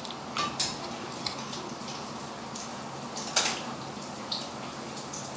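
Eating and drinking mouth sounds: scattered soft, wet clicks from chewing a donut and sipping from a can, with one sharper click about three and a half seconds in, over a steady low hum.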